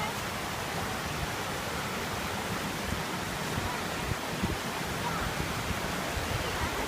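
Steady rushing roar of a waterfall's water.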